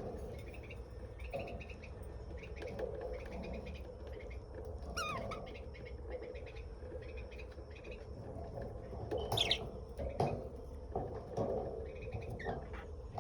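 Small pet parrots chirping and chattering in short calls, with a falling call about five seconds in and a few louder calls near the ninth and tenth seconds.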